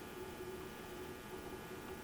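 Bridgeport E-Z Trak CNC vertical mill, powered up with its axis drives running, giving off a steady electrical hum with a whine that comes and goes as the table is moved by the hand wheel.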